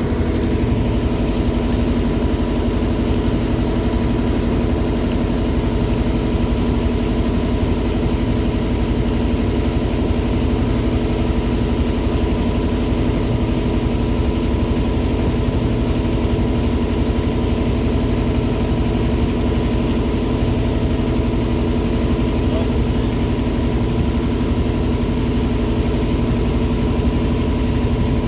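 River boat's engine running at a steady speed, with a constant hum that does not change in pitch or loudness.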